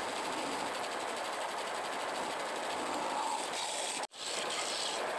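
Wood lathe running while a turning tool cuts the inside of a spinning cumaru hardwood bowl blank, a steady rough hiss of shavings being cut. The sound drops out for an instant about four seconds in.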